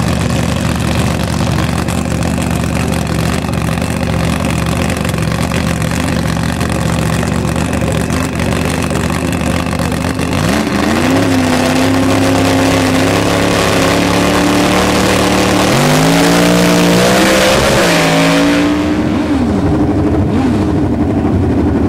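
A drag car's engine idling loudly at the start line, then revved in rising steps from about halfway in. Near the end, drag motorcycles idle and blip their throttles in quick rises and falls.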